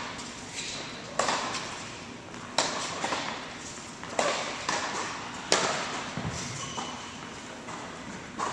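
Tennis rally: sharp racquet hits on the ball about every one and a half seconds, with softer bounces between, each ringing on in the echo of a large indoor hall.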